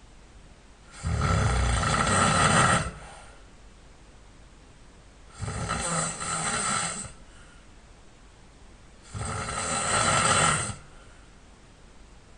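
A man snoring in his sleep: three long snores, each lasting under two seconds, coming about every four seconds, with quiet in-between.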